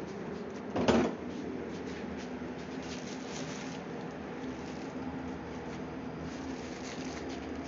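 A single sharp knock about a second in, over a steady low hum and faint scattered clicks.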